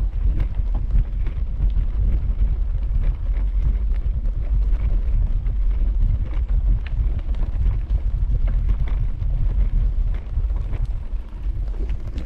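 Wind buffeting the microphone of a camera carried on a moving bicycle: a steady low rumble, with scattered light clicks and rattles as the bike rolls along a trail.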